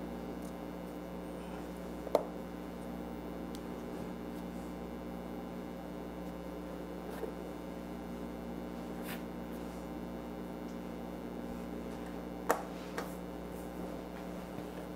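Steady low electrical hum, with a few faint taps of a metal cookie cutter pressed through gingerbread dough onto the counter: once about two seconds in and twice near the end.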